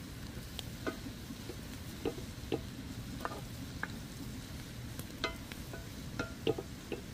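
Salmon frying in a pan over a campfire with a steady sizzle, while a spatula taps and scrapes against the pan about a dozen times in short, sharp clicks.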